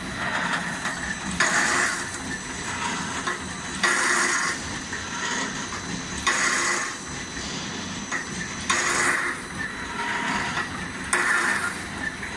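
Roll-type welded wire mesh machine running through its welding cycle: a sharp burst of noise about every two and a half seconds, five times, over a steady running noise with a faint high whine.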